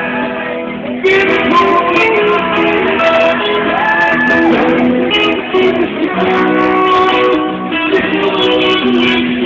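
Live acoustic-style band playing: plucked and strummed guitars over hand-struck cajón percussion. The playing gets louder about a second in.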